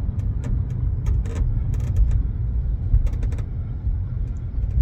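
Inside the cabin of a moving 2017 Chevrolet Bolt EV, a low road and tyre rumble with short ticks and creaks scattered through it. The creak comes from the rear hatch, its bump stops freshly sprayed with silicone, and is still there a little but not nearly as bad. The owner suspects the hatch latch is the main cause.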